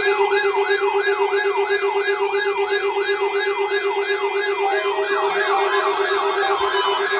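Several weather-radio alert receivers sounding their alarms at once, set off by a weather radio test signal. A rising whine repeats about three times a second over a steady low tone, and more alarm tones join about five seconds in.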